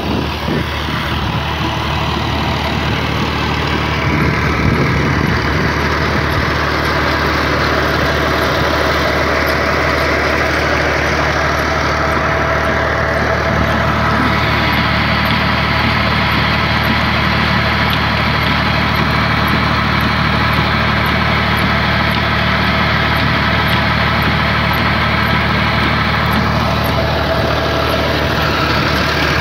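Al Ghazi tractor's diesel engine running steadily, driving a generator and a water pump through its shaft and belt pulley.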